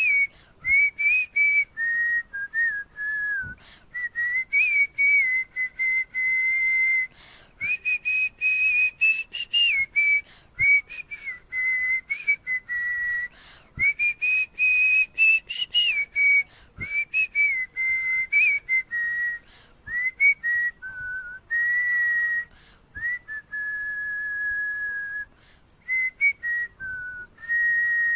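A person whistling a song melody with pursed lips, close to a wired earphone's microphone. It is a single pitch that steps and glides between notes, with short breaks for breath.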